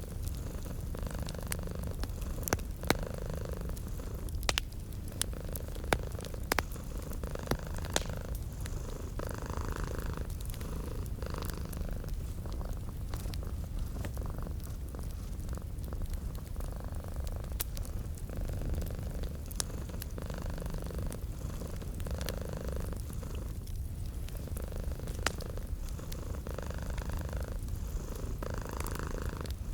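Domestic cat purring steadily in a low, continuous rumble, with a wood fire crackling and giving sharp pops, more of them in the first eight seconds or so.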